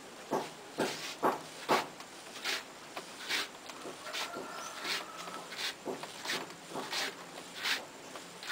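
Hands working wet clay on a potter's turntable: a run of short slaps and pats on the clay, irregularly about one to two a second.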